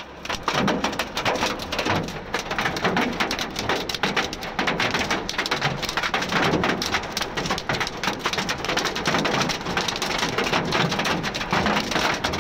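Hail and heavy rain pelting cars and the street: a dense, steady clatter of many small hits over the hiss of rain.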